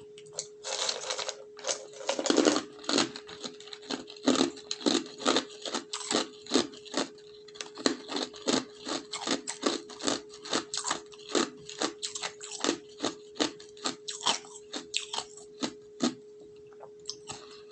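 Ice cubes being chewed close to the microphone: sharp, repeated crunches, about two to three a second, stopping near the end.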